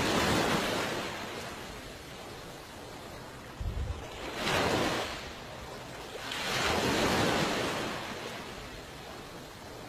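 Sea waves washing in three slow swells, each rising and fading over a second or two, with a short low thump a little before the middle.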